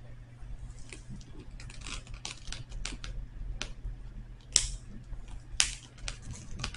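Scattered light clicks and taps, with two louder scuffs about four and a half and five and a half seconds in, over a low steady hum.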